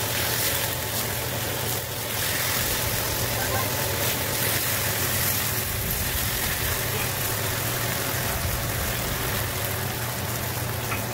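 Chicken sizzling steadily in hot sesame oil in a wok over a high gas flame as it is stir-fried, with a steady low hum underneath.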